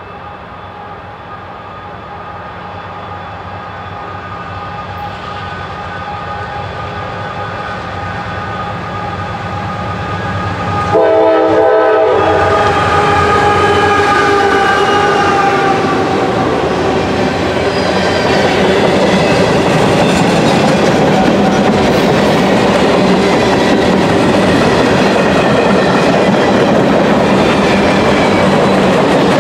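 Freight train's diesel locomotives approaching with the horn sounding, growing steadily louder. About 11 seconds in the locomotives pass with a sudden jump in loudness and the horn's pitch drops. After that comes the steady rumble and clickety-clack of freight cars rolling by.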